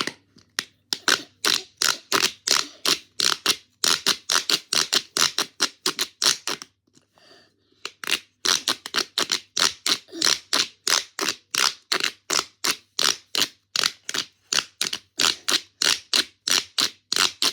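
A noise-making toy worked over and over, giving a fast run of short rasping strokes about three a second, with a break of about a second near the middle.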